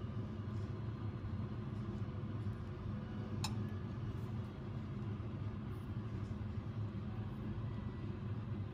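A steady low mechanical hum, with one short click about three and a half seconds in.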